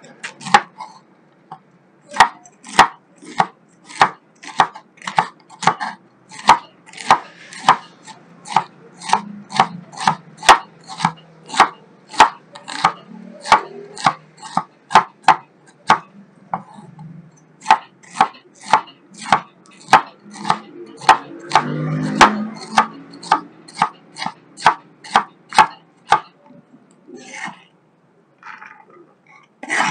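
A cleaver chopping cauliflower on a wooden cutting board: a steady run of sharp knocks, about two a second, that stops a few seconds before the end.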